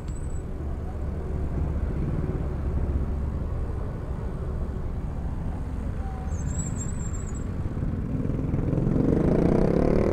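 Road traffic: motor vehicle engines running steadily around the rider. Near the end one engine revs up, rising in pitch and growing louder as it accelerates close by.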